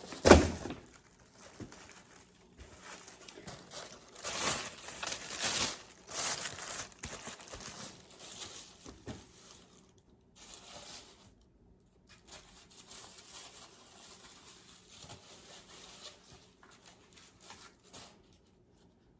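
Packaging being handled during an unboxing: crinkling and rustling of wrapping, loudest a few seconds in and then fading to lighter rustles, with one sharp knock just after the start.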